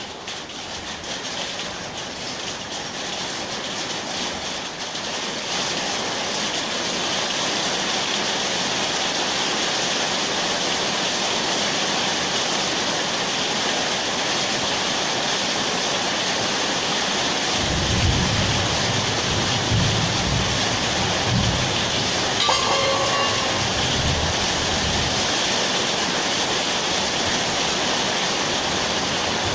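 A steady rushing noise that builds over the first several seconds and then holds even. A few low rumbles come past the middle, and there is a short beep about two-thirds of the way in.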